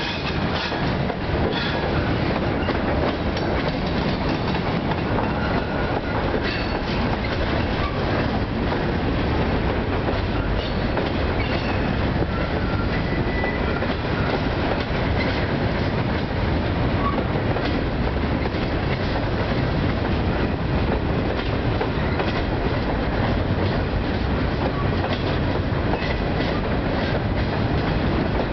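Freight cars (flatcars and gondolas) rolling steadily past: a continuous rumble of steel wheels on rail, with repeated clickety-clack clicks over the rail joints and a few brief, faint wheel squeals.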